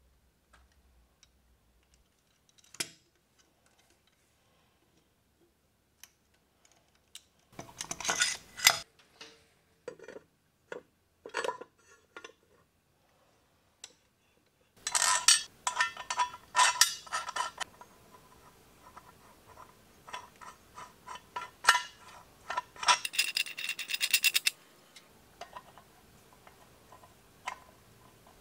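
Small metal parts of a chain grinder being handled and fitted together by hand on a steel table: clinks, clicks and rattles in irregular bursts, with a fast rattle about four fifths of the way through.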